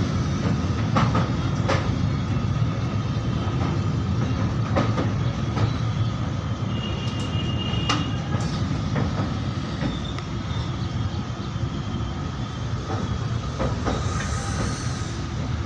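Train running over an old iron railway bridge: a steady low rumble with scattered metallic clanks from the wheels over the rails, and a brief high wheel squeal about seven seconds in.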